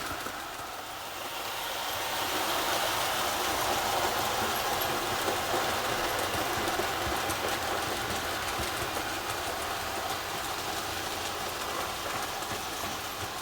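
Two Märklin gauge 1 Krokodil model electric locomotives in double traction hauling a freight train: the motors and gearing whirring and the wheels running on the track. It swells over the first few seconds as the train comes by, then slowly fades.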